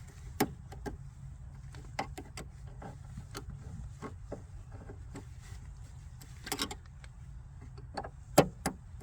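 Scattered clicks and knocks of a hand tool working loose a seat belt anchor bolt in a car interior, the sharpest knock near the end.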